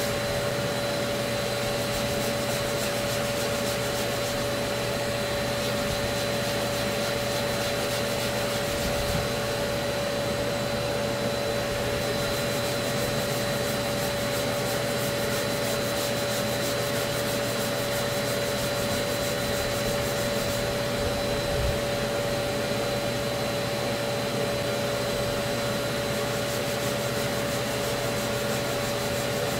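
Abrasive paper on a hand sanding block rubbing back and forth over cured body filler, over a steady machine hum with a constant tone, like a vacuum or dust extractor running.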